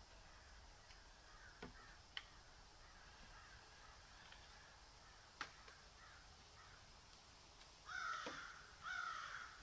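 Crow cawing: two loud, harsh caws about a second apart near the end, each about half a second long, over a quiet background with a few faint clicks and fainter distant calls.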